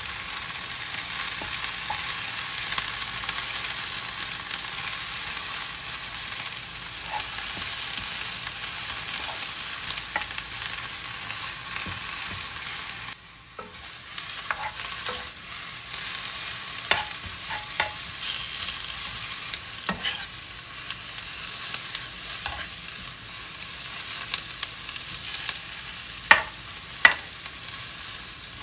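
Oil sizzling in a non-stick wok as leaves, dried red chillies and garlic are stir-fried, with a plastic spatula scraping and tapping against the pan. The sizzle dips briefly about halfway through, and there are two sharper taps near the end.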